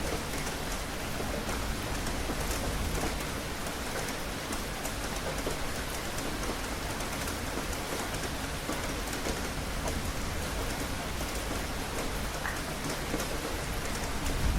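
Steady rain falling on a hard surface, a continuous hiss with many individual drops ticking through it.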